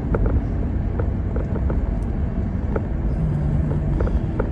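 A car driving on a highway, heard from inside: a steady low rumble of tyres and engine, with a few short light clicks scattered through.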